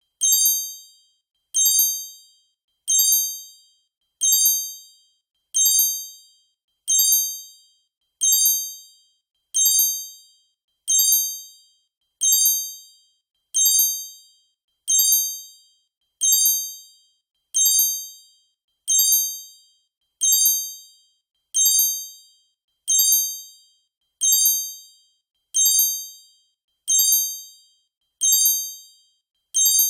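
A magic sparkle chime sound effect, a bright cluster of high ringing tones struck and fading quickly, repeated over and over about once every one and a half seconds.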